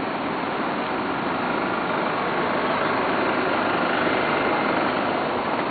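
City street traffic: a steady wash of engine and tyre noise from passing cars, vans and trucks, swelling slightly in the middle.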